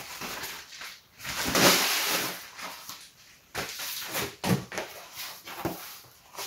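Packaging being unwrapped by hand: a padded paper wrapper rustling as it is pulled off, loudest about two seconds in, then a cardboard box being opened with a few light taps and scrapes.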